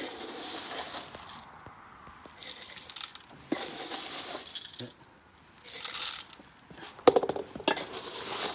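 Dry dog kibble scooped and poured into aluminium pots, the pellets rattling against the metal in several short bursts. A louder metallic clatter of the pots comes near the end.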